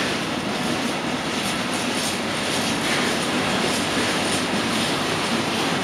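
Freight wagons rolling past at close range: a steady, even rumbling hiss of wheels running on rails.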